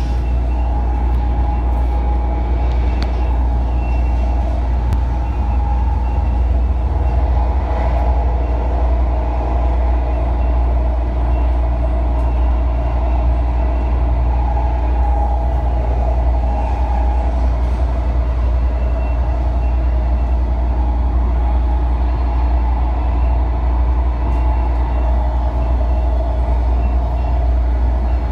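Interior running noise of a MARTA rapid-transit rail car moving at speed: a steady, loud low rumble from the wheels and track, with a slightly wavering higher whine on top.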